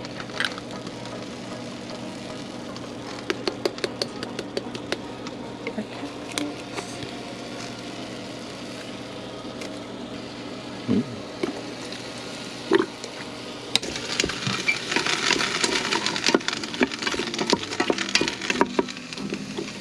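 Chopped greens and onion sautéing in an Instant Pot, with a steady sizzle and scattered sharp clicks and crackles. About two-thirds of the way through, the sizzle turns louder and denser.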